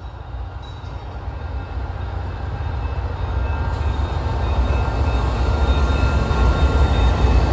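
Canadian Pacific freight train passing close by, led by its diesel locomotives: a deep engine and wheel rumble that grows steadily louder as the units draw near.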